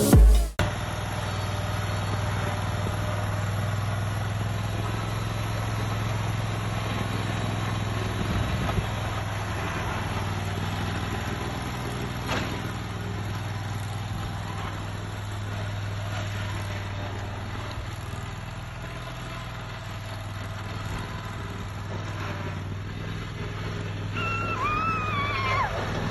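Riding lawn mower's engine running at a steady speed, an even low hum. A few short high chirps come in near the end.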